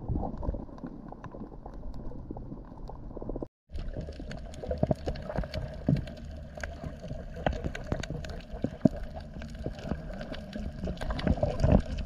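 Underwater sound on a shallow coral reef: a steady low rumble of moving water with many scattered clicks and crackles. The sound drops out for a moment about three and a half seconds in, then comes back a little brighter.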